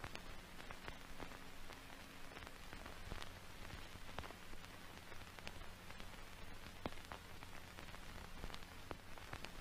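Faint static: a steady hiss with scattered irregular crackles over a low steady hum.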